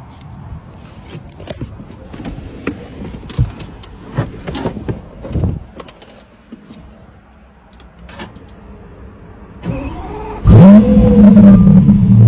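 Lamborghini Aventador V12 with a Gintani F1 aftermarket exhaust starting about ten seconds in: a sudden loud flare of revs that rises and then steadies into a loud, even running note. Before it, scattered clicks and knocks.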